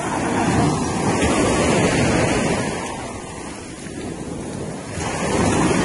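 Surf breaking on a beach, with wind buffeting the microphone. The rushing noise swells about half a second in, eases off in the middle, and swells again near the end.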